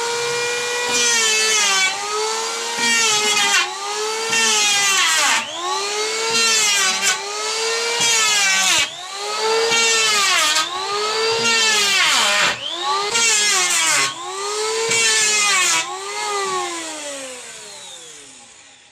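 Electric power drill running, its motor whine rising and falling in pitch in about ten surges, then winding down and fading near the end.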